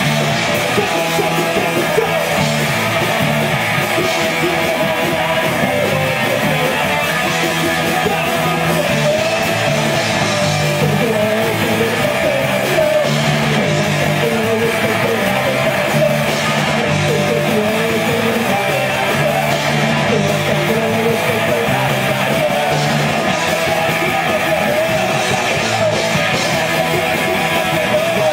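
Live punk rock band playing loud and steady: electric guitars, bass and drums, with a singer's voice over them.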